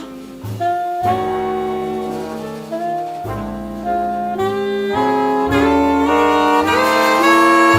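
Small jazz band playing a slow ballad: a saxophone carries the melody in held notes over piano and bass, and the band grows louder over the last few seconds.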